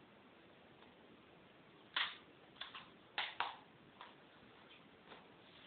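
Plastic DVD case being handled and shut: a series of sharp clicks and snaps, the loudest about two seconds in and a quick pair a little after three seconds.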